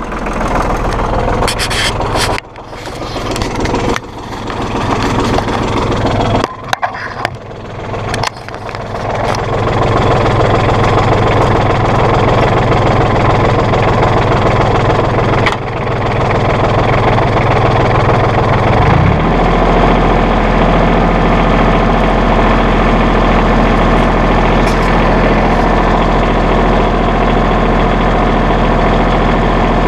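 1998 New Holland Boomer 1925 compact tractor's diesel engine running, choppy with dips for the first several seconds, then steady. About two-thirds of the way through, the revs rise and hold at a higher engine speed.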